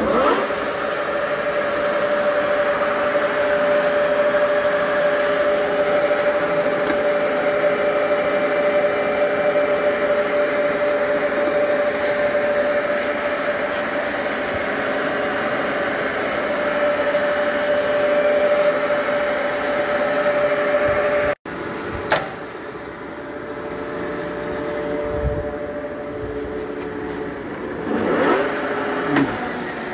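Geminis GE 650 gap-bed centre lathe running under power: a steady whine from the geared headstock over a busy mechanical rattle. About two-thirds through, the sound cuts out for an instant and then goes on quieter at a slightly lower tone, and the pitch slides near the end.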